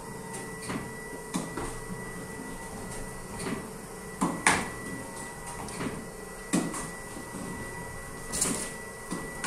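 Tennis ball hit back and forth with tennis rackets in a room, a string of sharp irregular strikes and bounces, the loudest about halfway through. A faint steady high tone runs underneath.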